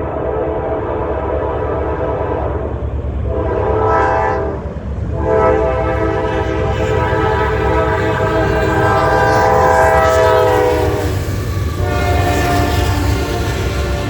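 Norfolk Southern locomotive horn sounding a chord for a grade crossing: a long blast, a longer one after a short break, and a third starting near the end. A steady low rumble of the train runs beneath.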